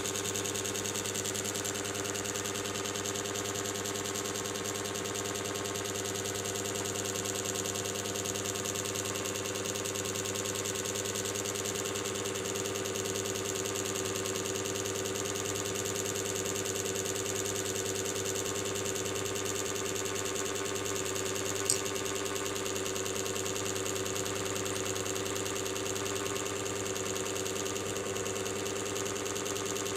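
Steady mechanical hum of a small electric motor, with one sharp click about 22 seconds in.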